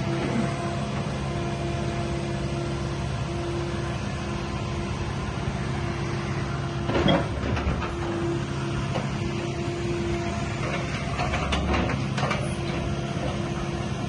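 Kubota KX080-4 tracked excavator's diesel engine running steadily, with a whine that comes and goes and a clank about seven seconds in.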